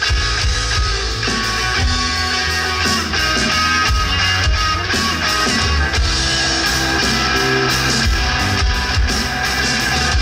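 Rock band playing live: guitar over bass and drums.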